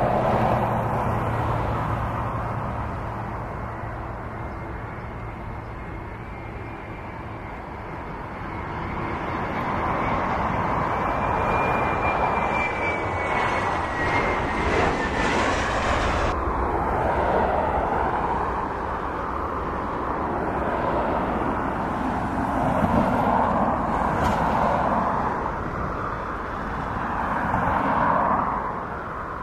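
Jet airliner engines at taxi power, a steady broad rumble that swells and eases several times, with a faint whine rising and falling about halfway through.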